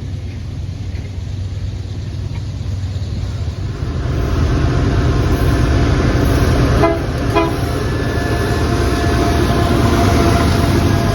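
Locomotive horn sounding a salute over the rumble of a passing train: the rumble grows louder, then the horn's several-note chord blows, with two short blasts followed by a long held blast.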